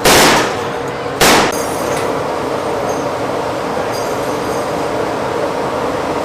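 Two shots from a deck-mounted heavy gun aboard a warship, about a second apart, the first at the very start and the second shorter, then a steady rumbling background noise.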